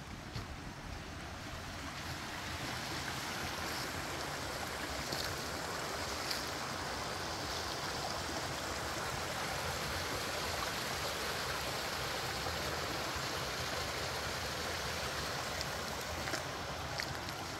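Creek water rushing: a steady hiss that swells over the first couple of seconds and then holds, with a few faint clicks on top.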